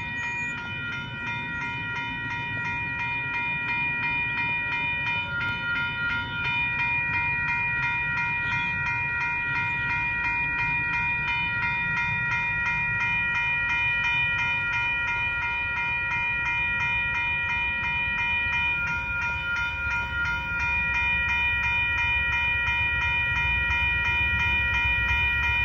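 Railroad grade-crossing warning bells ringing steadily in a rapid, even beat, with the signals active for an approaching train. A low rumble builds underneath near the end as the train draws closer.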